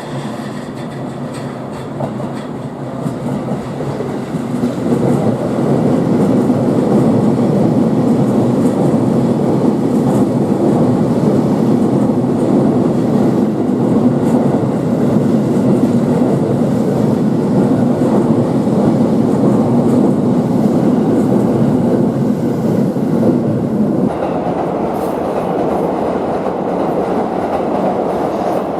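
JR East E233-7000 series electric commuter train running along the platform, its wheels clattering over the rail joints. The rumble builds over the first few seconds, holds steady, and changes character near the end.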